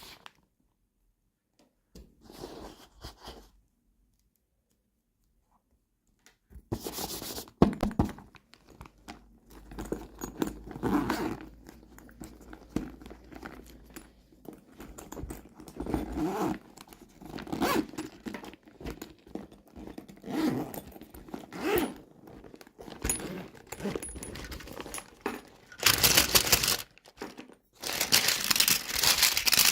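Toy packaging being handled and torn open: irregular crinkling, tearing and scraping of plastic and paper. It starts with a short rustle, then runs on from about six seconds in, with the loudest tearing bursts near the end.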